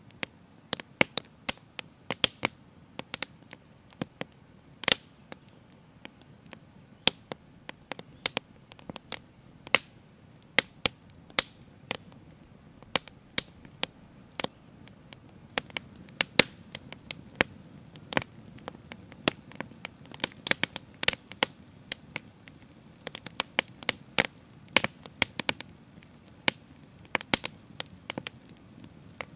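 Open fire crackling: irregular sharp pops, at times several a second, over a soft steady low noise.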